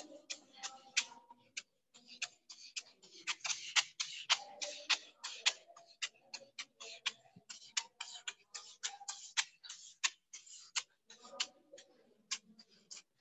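Whiteboard eraser wiping across a whiteboard in quick back-and-forth strokes: a rapid run of short swishes, broken by a few brief pauses.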